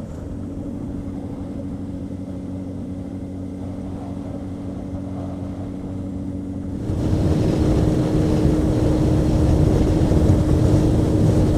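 2000 Honda CB600F Hornet's inline-four engine running at a steady note under wind noise on the helmet microphone. About seven seconds in, the wind and engine get louder and the engine note rises a little.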